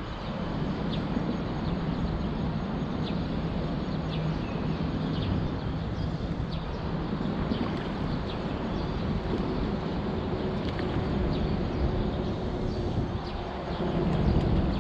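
Steady rumble of traffic on the highway bridge overhead, with a faint low hum running through it and a few short, faint high chirps.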